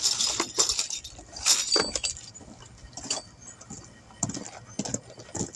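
Irregular metallic clinks and rattles of small metal parts being handled, the loudest near the start and about a second and a half in.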